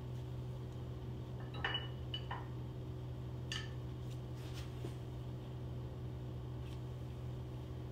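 A few light metallic clinks of small metal parts being handled, the loudest about two seconds in, over a steady low hum.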